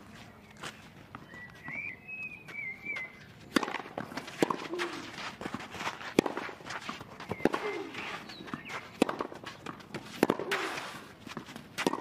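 Tennis rally on a clay court: sharp racket strikes on the ball about every one and a half seconds, starting a few seconds in, some followed by a player's short grunt. Before the rally a bird chirps briefly.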